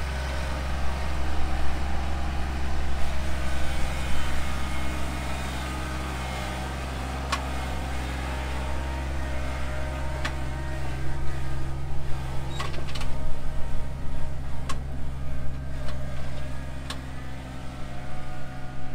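John Deere 2025R compact tractor's three-cylinder diesel engine running steadily as the tractor drives across the yard. A few sharp clicks come through in the middle of the run.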